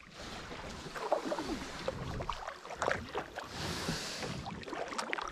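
Kayak paddle strokes in river water: irregular drips and small splashes, with a brief hiss of water about three and a half seconds in.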